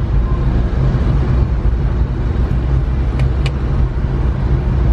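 Cab interior of a 1992 Suzuki Carry kei truck on the move: its small three-cylinder engine and road noise make a steady low rumble. Two light clicks come a little past three seconds in.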